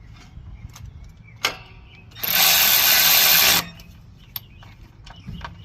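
A power driver running for about a second and a half, driving in one of the fuel tank mounting bolts, with a sharp start and stop. A few small clicks of tools and parts come before it and after it.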